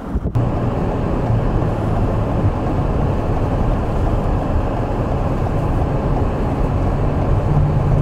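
Steady low rumble of a vehicle driving on a snow-covered highway, with wind noise over it. A brief dropout comes just after the start.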